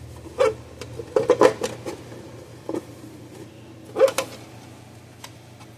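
Scattered knocks and clicks of a fence charger's casing and parts being handled and fitted back together, a cluster of them about a second in and another pair about four seconds in.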